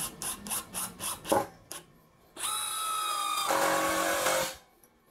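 Makita TD112D 12-volt impact driver driving a screw into meranti wood on its lowest speed setting. A few short clicks come first, then the motor runs with a steady whine for about two seconds. About halfway through, the sound turns harsher as the impact mechanism starts hammering the screw home, then it stops.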